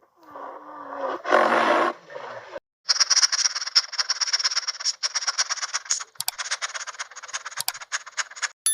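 Animal calls: first a short pitched call with a rough, growling tone, then several seconds of rapid rattling clicks, many per second, that stop shortly before the end.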